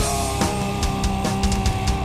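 Loud, aggressive heavy metal music with rapid drum hits over held sustained notes.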